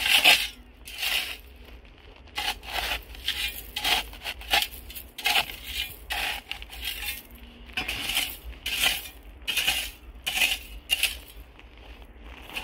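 Steel shovel blade scraping and scooping across gravelly dry soil in short, repeated strokes, about one or two a second.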